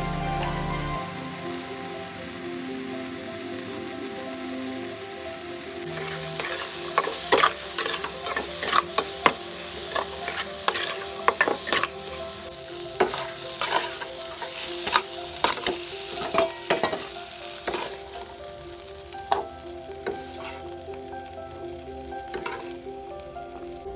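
Paneer bhurji with peas sizzling in a pan while a spatula stirs it. The spatula clicks and scrapes sharply and repeatedly against the pan from about a quarter of the way in.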